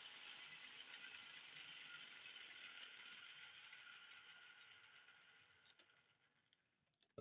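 A steady, high hiss that slowly fades away and dies out near the end.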